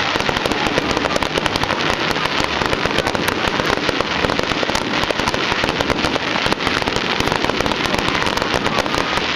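Fireworks display: a dense, unbroken barrage of bangs and crackling, the reports running together with no pause.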